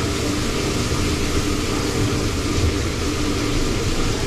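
Steady drone of a passenger ship's machinery, a constant hum with a few held tones over low rumble, heard in the ship's galley.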